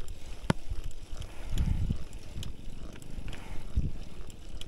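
Gravel bike ridden up a steep concrete climb: a low rumble of the ride with scattered sharp clicks and knocks from the bike, and a few low puffs of air against the microphone, about a second and a half in and again near four seconds.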